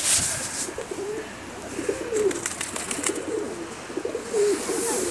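Domestic pigeons cooing: overlapping, repeated low coos from several birds in the flock, with a short run of quick clicks a little over two seconds in.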